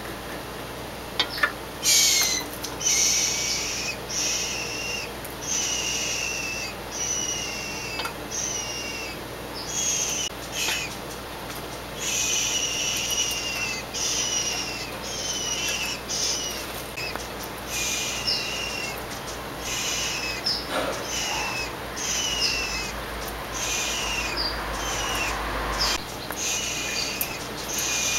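Scrub-jay giving a long series of harsh, repeated calls, roughly one a second, each ending in a falling slur. A couple of sharp taps are heard near the start.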